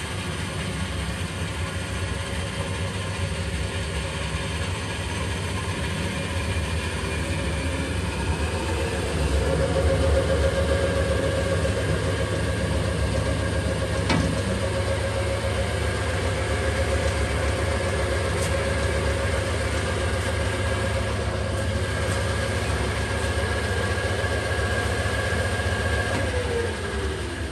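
DoAll 2013-V 20-inch vertical band saw running with no cut, its drive and blade wheels giving a steady mechanical hum with a few held tones. It grows a little louder about a third of the way in, there is a single click near the middle, and near the end the pitch falls as the saw winds down.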